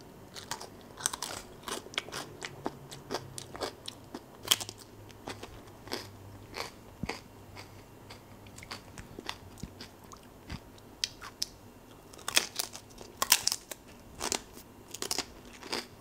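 Close-miked crunching and chewing of a Cornetto ice cream's chocolate wafer cone, heard as scattered crisp crackles with a denser run of crunches about twelve seconds in.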